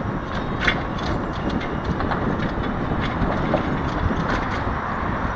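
Motorcycle taxi under way: steady rumbling ride noise with scattered rattles and clicks.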